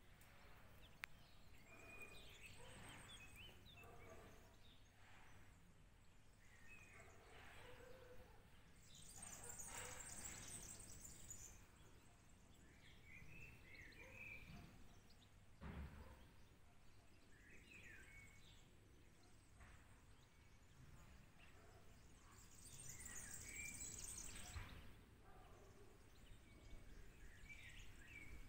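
Faint outdoor quiet with scattered short bird chirps and calls. Twice a soft hiss swells and fades.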